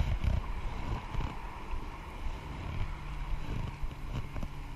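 Wind buffeting the microphone of a camera on a kayak's bow, over water lapping at the hull and the splash of paddle strokes.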